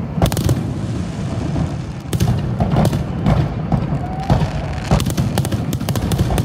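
Aerial firework shells bursting overhead in quick succession: many sharp bangs, several a second at times, over a continuous low rumble.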